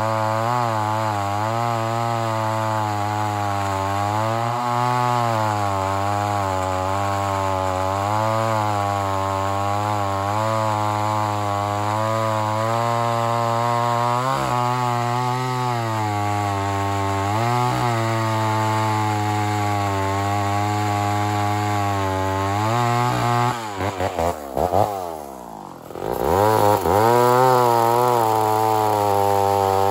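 Vintage 68cc Lombard Super Lightning two-stroke chainsaw cutting through a large log under load, its engine note wavering as the chain bites. About three-quarters of the way through, the engine falls away sharply for a second or two, then revs back up to full speed.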